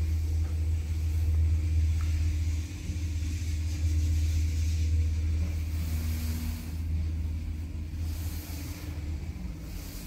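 Passenger lift car travelling, with a steady low rumble that eases near the end.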